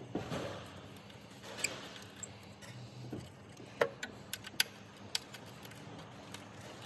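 Light metallic clicks and ticks, spaced irregularly, as a hex key works a fender bolt with an anodized fender washer, with a soft rustle of handling near the start.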